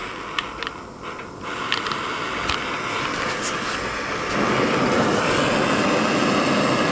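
Handheld butane blowtorch burning with a steady hiss, growing louder about four seconds in as the lit torch is brought back to the bench, with a few sharp clicks before it.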